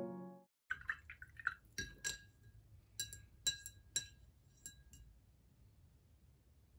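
Paintbrush clinking against a glass jar of paint water: a run of light, faint clinks and taps, some ringing briefly, that stops about five seconds in.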